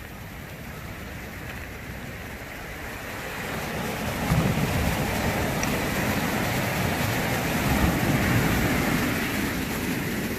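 Small ocean waves breaking and washing up over a cobble beach, the surf growing louder about four seconds in.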